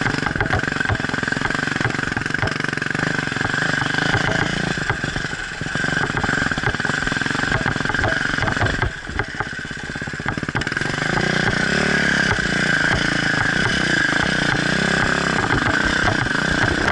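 Off-road motorcycle engine running under way with a rapid rattling beat. The throttle eases off briefly twice, about five and nine seconds in, then picks up again.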